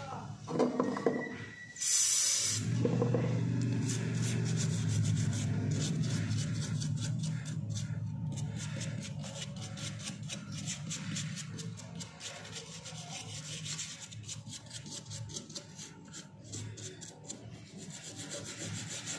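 Brush scrubbing dirt off a mobile phone's circuit board in quick repeated strokes, cleaning grime from the board. A short hiss about two seconds in, just before the scrubbing starts.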